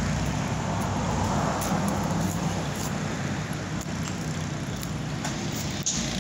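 Road traffic noise: a steady wash of passing cars over a low rumble, with one car swelling past about a second in. A short knock near the end.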